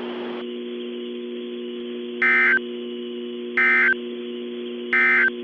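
Three short bursts of EAS SAME digital data tones, each under half a second and about 1.3 seconds apart, the end-of-message code that closes an alert broadcast. They play over a steady low electronic hum.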